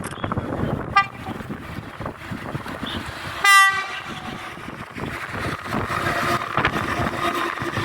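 Train horn: a short toot about a second in, then a louder blast of about half a second near the middle. A train's running noise rumbles underneath and grows in the second half.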